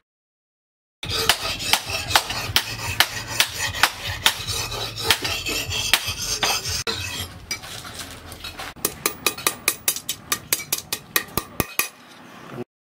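Steel clinking and tapping as a hand-forged axe is worked. It ends in a quick, even run of sharp taps, about five a second, as the axe blade strikes a steel rod on an anvil.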